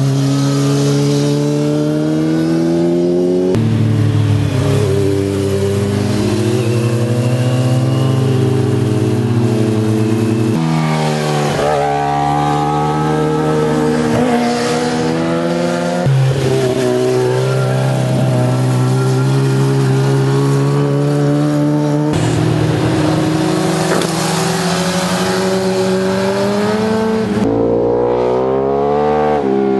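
Sport motorcycle engines revving up and down as the bikes accelerate out of bends and pass by, pitch gliding with each change of throttle. The sound comes as a string of short clips joined by abrupt cuts every five or six seconds, each a different bike.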